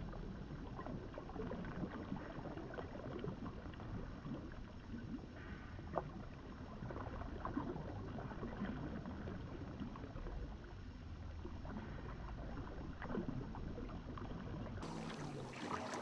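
Open-water ambience: small waves lapping and splashing, with a steady low rumble of wind on the microphone and a few sharper slaps of water.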